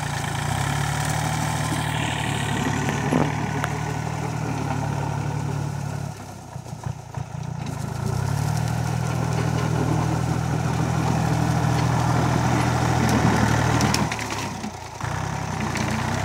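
Kubota Sunshine L1-20 compact tractor's diesel engine running steadily while driving a rear-mounted rotary mower through tall grass. The sound drops away briefly twice.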